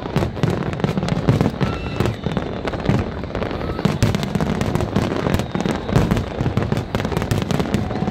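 Fireworks display: aerial shells bursting in a rapid, unbroken barrage of booms and crackles.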